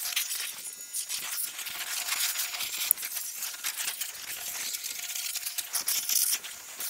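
Pressure washer jet spraying a UTV's tyre, suspension and body panels during a pre-wash: a steady hiss of spray with uneven spattering and crackle as the jet moves over the surfaces.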